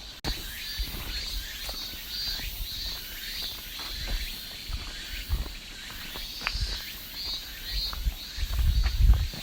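Cicada song: a high, pulsing buzz repeating a few times a second. Low thumps and rumbling, loudest near the end, lie under it.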